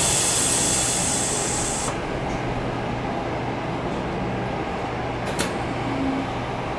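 Tokyo Metro 07 series subway car standing at a station: a loud hiss of compressed air cuts off sharply about two seconds in. The car's steady low hum carries on after it, with a single click near the end.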